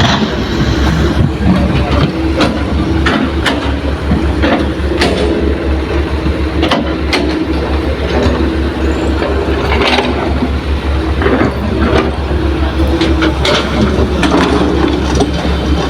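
Diesel engines of Hitachi excavators and a dump truck running with a steady low rumble, with irregular metallic clanks and knocks from the working machines.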